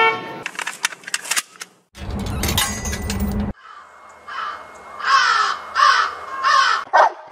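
A string of short sound-effect samples played back to back. First a brief pitched tone, then a scatter of clicks and a noisy burst with deep bass. In the second half comes a run of about five short, harsh cawing calls.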